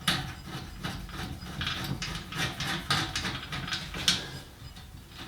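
Ratchet wrench clicking in quick, irregular strokes as a nut is run down on a bolt, with small metal scrapes and knocks; the clicking eases off about four seconds in.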